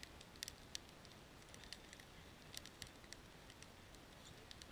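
Faint crackling of a wood fire: scattered, irregular sharp snaps and pops from burning split logs.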